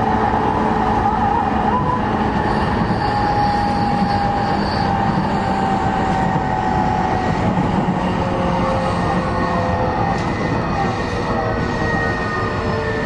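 Running sound inside a JR East E233 series 5000 electric commuter train: a steady rumble of wheels on rail, with faint motor whines that slowly fall in pitch.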